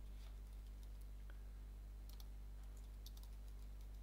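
Faint, scattered keystroke clicks from a computer keyboard as a terminal command is typed, over a steady low electrical hum.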